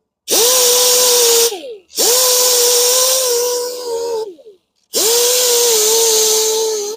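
Power grinder with a 60-grit sanding disc grinding down the curb-rashed spokes of an alloy wheel, run in three bursts of about one to two seconds, each a steady whine with a harsh grinding hiss that winds down in pitch as the trigger is released.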